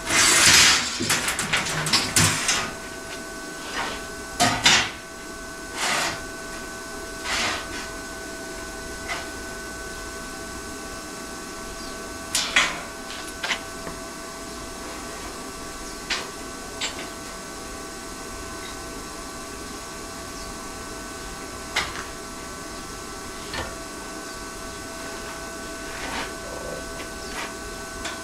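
Shop work on metal fender pieces: scattered knocks and clicks of parts being handled and fitted, with a dense clatter in the first couple of seconds, over a steady electrical hum.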